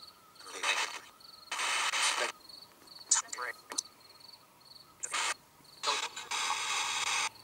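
Ghost-box app on a phone, played through a small portable speaker and sweeping radio channels: separate bursts of hissing static, each under two seconds, with short chopped voice fragments about three seconds in. This is the device's 'answer' in a spirit-box session.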